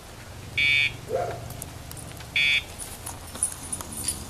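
Dogtra remote e-collar's pager buzz sounding twice, a short electronic buzz each time, about two seconds apart; each buzz marks the pager vibration being delivered to the dog's collar.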